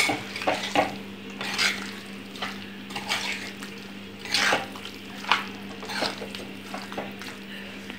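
A spoon scraping and clinking irregularly against a black chatti as chicken pieces in thick masala are stirred and turned, with a steady low hum underneath.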